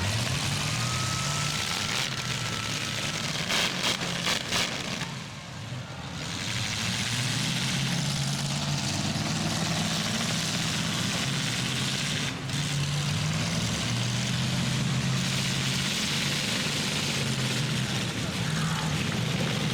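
Demolition derby trucks' engines running and revving, with a quick run of bangs about four seconds in.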